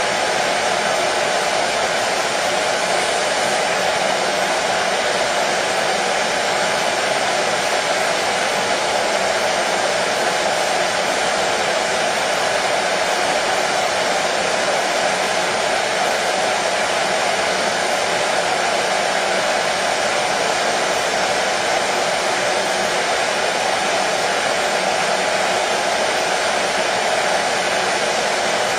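Hair dryer running continuously at one setting: a steady, unchanging rush of air with a motor hum, played as white noise to soothe a colicky baby.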